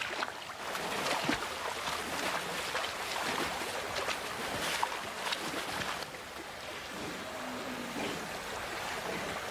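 Shallow river running over stones, with frequent short splashes as a bison bull wades in the water.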